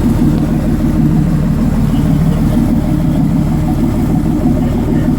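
A boat's engine idling with a steady low drone.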